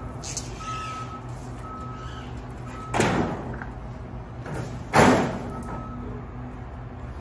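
Forklift running with a low hum and a short, repeated warning beep as it moves a load of drywall, with two loud bangs about two seconds apart in the middle.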